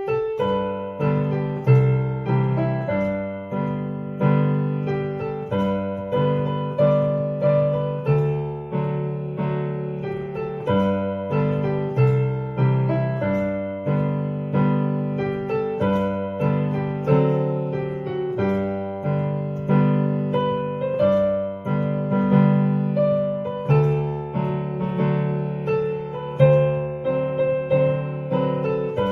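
Solo piano playing a hymn in full chords with a bass line, at a steady, moderate pace of about two struck chords a second.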